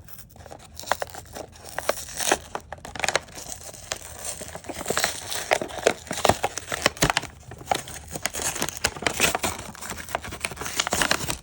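Action figure packaging being opened by hand: a plastic blister crinkling and crackling and cardboard tearing, in a dense run of irregular crackles and sharp snaps.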